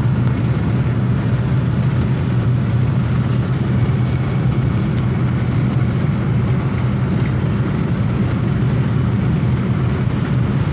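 Car cruising at highway speed, heard from inside the cabin: a steady low drone of road and engine noise with an even hiss over it and no change in pitch.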